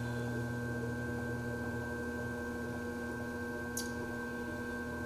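Electric potter's wheel running with a steady hum while wet clay is thrown on it; a brief faint tick comes nearly four seconds in.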